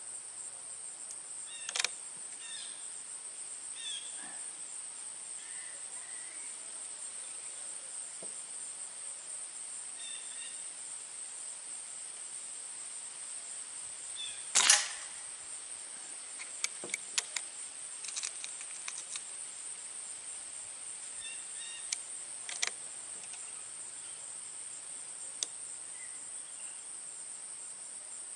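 Sharp cracks of a .177 Diana Trail Scout CO2 air rifle shooting at targets. The loudest crack comes about halfway through, with a smaller one early on and several lighter clicks after it. Under them runs a steady high insect buzz with birds chirping.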